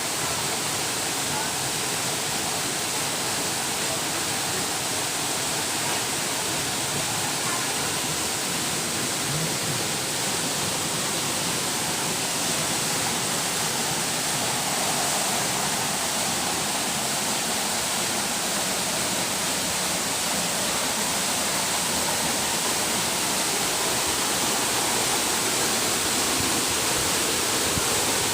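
Waterfall: a steady rush of falling water, getting slightly louder near the end.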